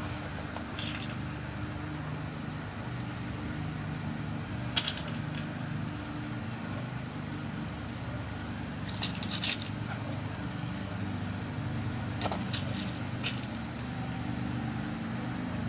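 Small sharp metal clicks as new key pins are loaded one by one into the plug of a pin-tumbler lock cylinder being rekeyed: one about five seconds in, a few together around nine seconds, and more around twelve to thirteen seconds. A steady low hum runs underneath.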